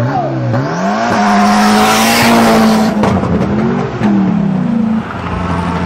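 Drag-race launch of a Chevrolet Camaro SS V8 and a modified Fiat 126: the engines climb in pitch under full throttle and hold high, with a loud rush of noise peaking about two seconds in. Near four seconds the pitch changes again as the cars run down the strip.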